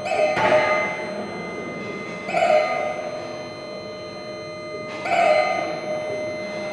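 Live electronic music: chime-like struck tones sound three times, near the start, about two seconds in and about five seconds in, each ringing out over steady sustained high tones.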